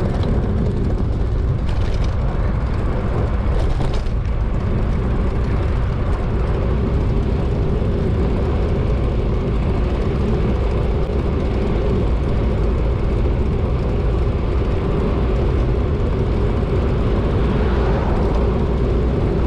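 Wind rushing over the microphone of a bicycle-mounted camera as the bike picks up speed downhill: a loud, steady, low rumble with a constant hum under it.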